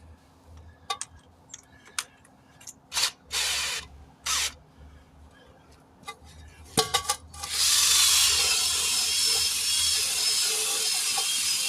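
Cordless drill spinning a wire brush against a wheel rim to clean the bead area for bead sealer. It runs in a few short bursts among clinks and knocks, then runs steadily for about four seconds from a little past halfway.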